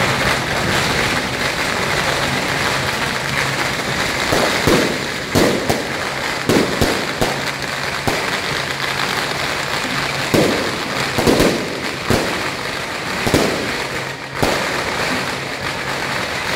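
Strings of firecrackers crackling continuously, with louder single bangs standing out every second or two from about four seconds in.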